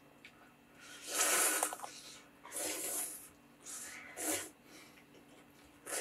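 Ramen noodles slurped off chopsticks in several noisy slurps, the longest and loudest about a second in, with shorter slurps later.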